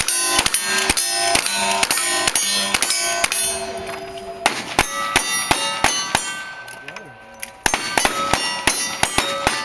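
Rapid gunfire at steel cowboy-action targets, each hit clanging with a ringing tone, about three shots a second. The shooting pauses briefly past the middle, then resumes near the end.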